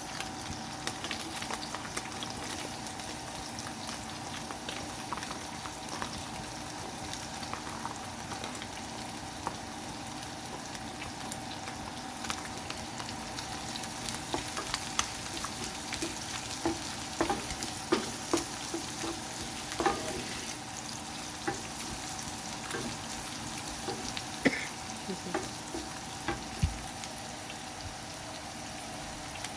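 Chopped onion sizzling in hot oil in a frying pan, with scattered clicks and knocks of a utensil stirring against the pan, more frequent in the second half.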